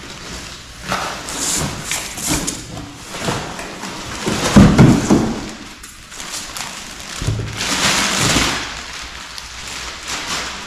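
Packaging being handled: plastic wrap crinkling and rustling around a heavy portable power station as it is lifted out of its box and set down on a wooden workbench. There is a loud thump about halfway through, and more crinkling later as the bag is pulled off.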